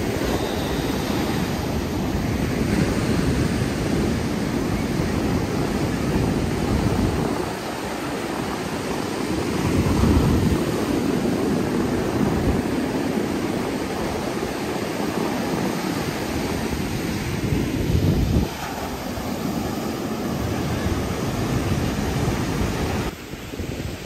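Wind buffeting the microphone in uneven gusts, over the wash of ocean surf breaking on a beach.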